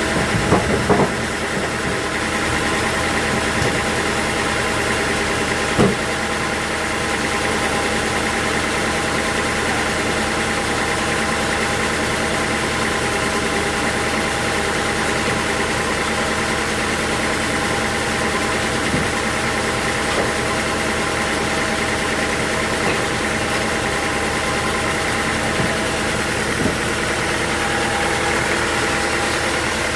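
Sawmill machinery running steadily, a motor hum with several steady tones. A few sharp knocks come about a second in and again near six seconds.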